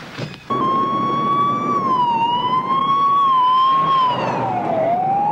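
Ambulance siren wailing over road noise. It cuts in suddenly about half a second in, its pitch rising and falling slowly and unevenly, with a deeper dip near the end.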